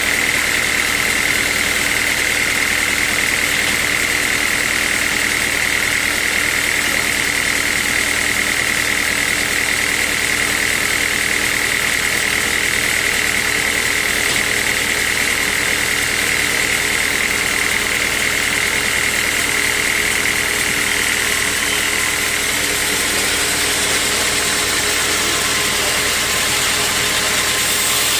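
Sawmill machinery running steadily, with a constant high whine over a low hum; the whine fades about three-quarters of the way through.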